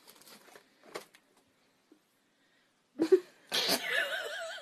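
A person sneezing about three seconds in: a short voiced 'ah' followed by a loud, breathy burst that trails off. Before it there are only a few faint clicks.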